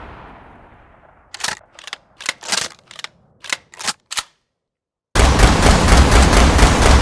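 Revolver sound effect: the echo of a shot dies away, then a run of about eight short metallic clicks, a brief silence, and from about five seconds in a loud, very rapid string of shots.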